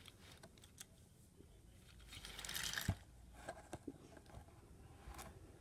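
Faint handling sounds of a cardboard toy box and a small toy engine being picked up and moved: a rustle of cardboard about two seconds in and a few light clicks.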